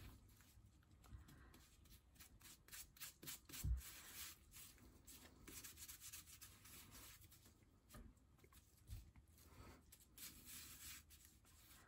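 Faint scraping and rubbing of gloved hands packing damp, crumbly bath bomb mixture into a small cauldron mold over a metal bowl, with a soft low thump about four seconds in.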